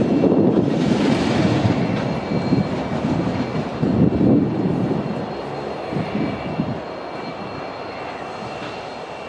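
Three coupled diesel freight locomotives running light, their engines and wheels rumbling as they move away, the sound fading steadily. A few louder thumps come around four and six seconds in.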